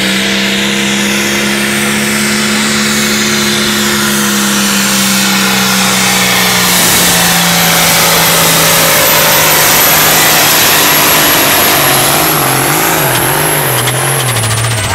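John Deere farm tractor's diesel engine running at full throttle, hauling a pulling sled. A high steady whistle runs over the engine. In the last few seconds the engine note wavers and drops as it labours under the sled's load, and the whistle falls away near the end.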